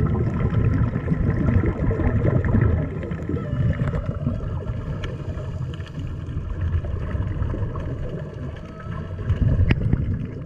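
Underwater sound as heard through a dive camera's housing: a low, muffled rumble with gurgling water, and a sharp click near the end.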